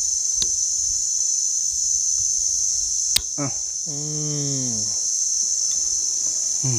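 Steady high-pitched drone of insects in the surrounding forest, with one sharp click about three seconds in.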